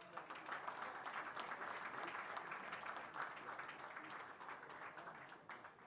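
Audience applauding, a crowd of hands clapping. It starts abruptly and slowly thins out toward the end.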